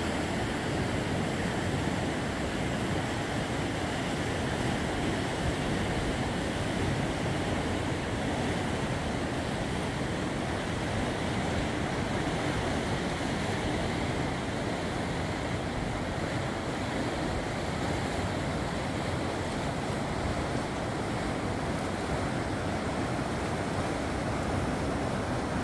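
The Neckar river in flood, fast brown water rushing steadily under a bridge.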